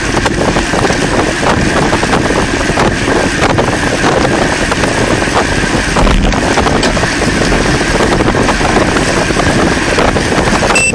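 Wind buffeting the microphone of a bike-mounted camera while riding at about 30 km/h, with steady road and tyre noise and frequent small knocks and rattles.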